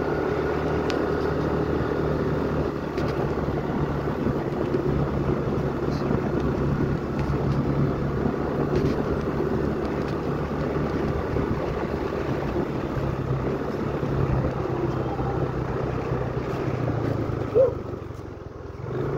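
A vehicle engine running steadily while moving along a road, a low drone with road noise. Near the end there is a short sharp sound, and the drone drops briefly.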